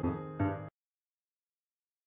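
Closing background music ending: a last note sounds about half a second in, then the music cuts off to silence.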